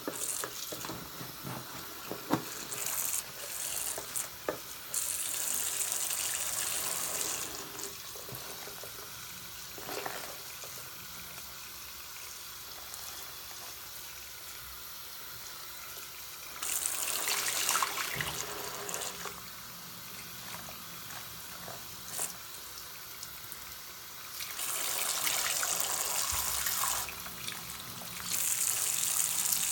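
A bathroom faucet running into a sink while a lathered foam sponge is squeezed and rinsed under the stream. The water sound swells louder several times as the sponge is wrung, with a few small clicks near the start.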